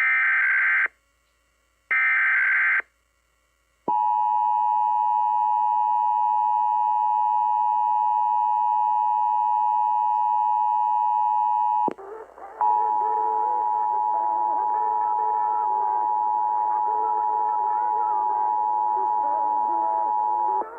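Two short bursts of screeching EAS SAME header data tones, then the two-tone Emergency Alert System attention signal (853 and 960 Hz) held steady for about eight seconds. After an abrupt cut, the attention signal starts again and holds for another eight seconds, with a station's program audio faintly underneath.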